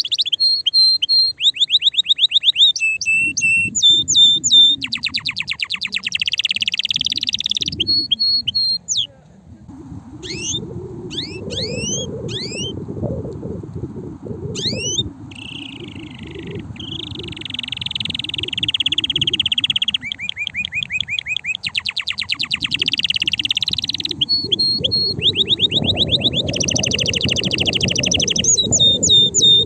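Male canary singing a long, loud song of rapid trills, each a fast run of one repeated note, jumping to a new pitch every second or two, with a few rising and falling sweeps after a short break near the middle. A low rumble runs underneath for most of the song.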